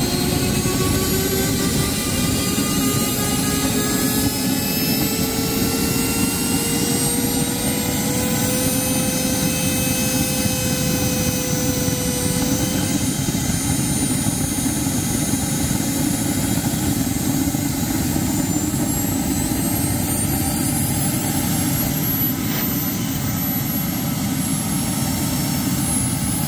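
Radio-controlled aircraft flying, its whine slowly rising and falling in pitch as it moves around, over a steady rushing wind noise on the microphone.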